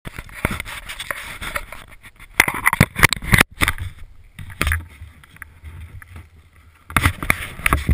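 Handling noise from a camera being moved about by hand: irregular knocks, scrapes and rubbing close on its microphone, in two denser flurries, with a low rumble in between.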